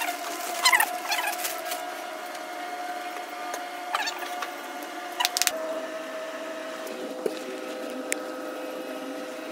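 Rustling and scraping as peat moss substrate is poured from a plastic bag into a wooden enclosure and spread by hand, with a few sharp clicks. Underneath are steady background tones that change pitch about halfway through.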